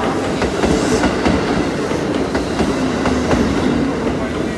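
Electric train running, its wheels clicking over the rail joints over a steady rumble.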